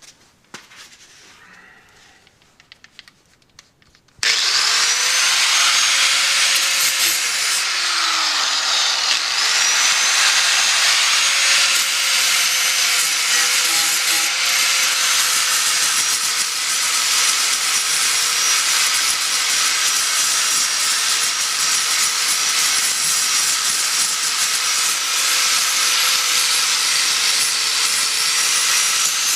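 A few faint clicks, then about four seconds in a power grinder starts abruptly and runs steadily against the truck's frame metal, cleaning it up. Its whine dips slightly now and then as it is pressed in.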